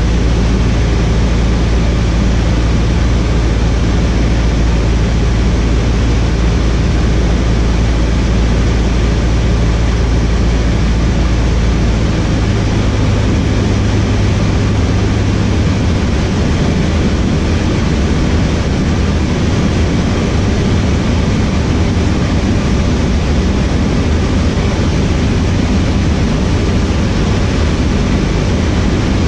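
Cessna 152's four-cylinder Lycoming engine and propeller running steadily in flight, heard inside the cabin together with a steady rushing noise; the low engine note changes about twelve seconds in.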